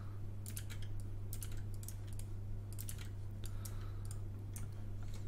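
Computer keyboard and mouse clicks: scattered light, irregular clicks over a steady low hum.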